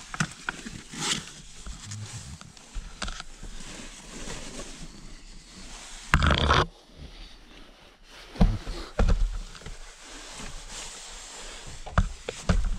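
Knocks, scrapes and rustling of a person climbing a ladder into a cluttered attic and moving over its debris-strewn boards. A loud scraping rush about six seconds in, then several sharp thumps.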